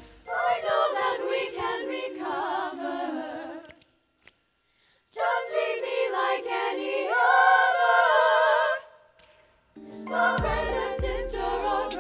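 A stage musical's chorus of girls singing in unison phrases. Two phrases are split by a pause of about a second and a half, and the second ends on a long held chord. A short gap follows, then the band's bass and accompaniment come back in under the voices near the end.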